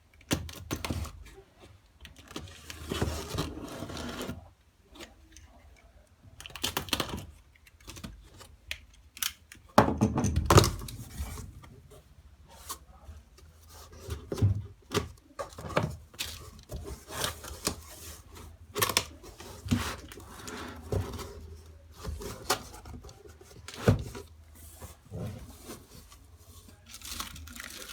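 Cardboard packaging being opened by hand: flaps and packing scraping and rubbing, with many scattered knocks and clicks.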